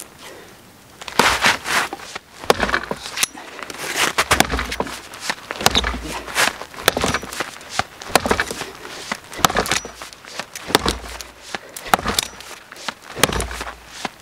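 An axe chopping into a thin, dead standing conifer trunk, a steady run of sharp wooden chops about every half second to second, with wood splintering at the cut.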